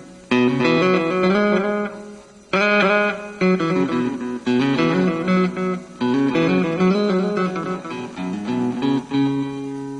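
Pro Martin Deluxe guitar played through a Marshall MG2FX mini amplifier: picked notes and chords with some bent notes, ending on a chord left ringing about nine seconds in.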